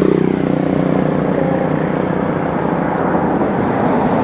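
Steady rumble of motor traffic, with one engine's hum fading out about half a second in.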